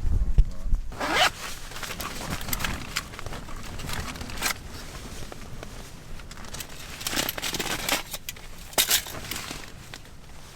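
A zip pulled in several separate short strokes, with rustling and scraping between them.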